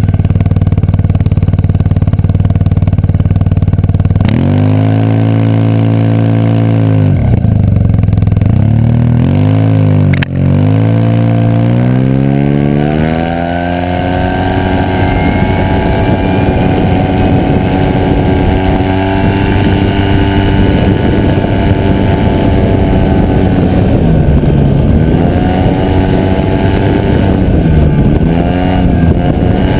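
Yamaha TMax parallel-twin scooter engine through an Akrapovič exhaust. It idles for a few seconds, revs up and drops back several times, then climbs to a steady high engine speed, dipping briefly twice near the end.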